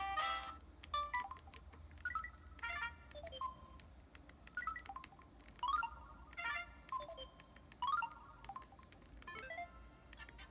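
Samsung Anycall SCH-W200 feature phone playing one of its built-in tones: a sparse electronic melody of short chiming notes, many sliding quickly down in pitch.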